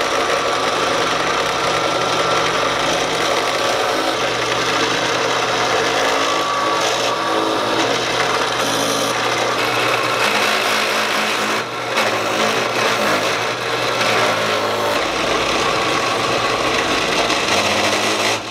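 Benchtop drill press running with a steady motor hum, its bit boring holes into a clamped wooden block.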